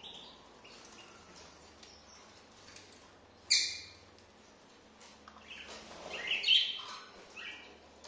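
Cockatiels chirping: one sharp, high chirp about three and a half seconds in, then a cluster of calls a couple of seconds later.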